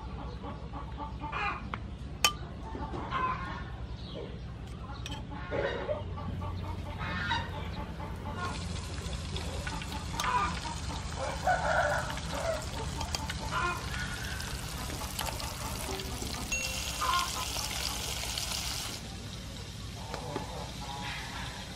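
Chickens clucking in short, scattered calls, with a steady hiss from about eight to nineteen seconds in.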